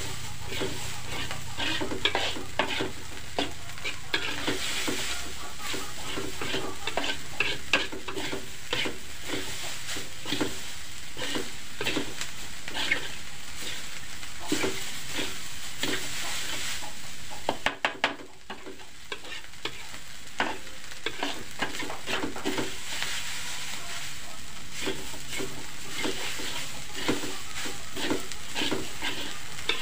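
Basil fried rice sizzling in a large metal wok while a metal spatula stirs and scrapes it, with repeated scraping clinks a few times a second. A little past the middle the stirring stops briefly and the sizzle dips, then both build back.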